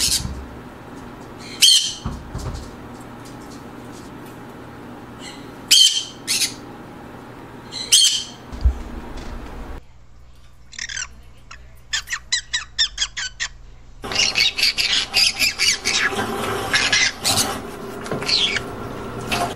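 Green-cheeked conures squawking: sharp single calls a few seconds apart, then a quick run of short calls at about four a second, and a dense stretch of rapid chattering calls near the end.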